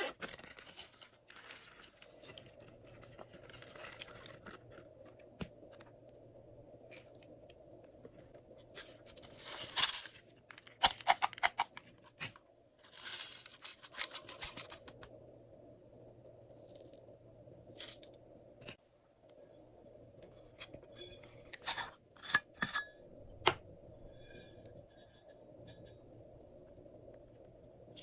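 Hands working slime and added bits in a container: scattered clicks, crackles and scrapes, with two louder scraping rushes about ten seconds in and about thirteen seconds in.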